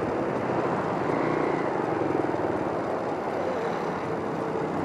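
Steady rush of wind and road noise on a motorcycle rider's external microphone while riding, with a faint engine hum.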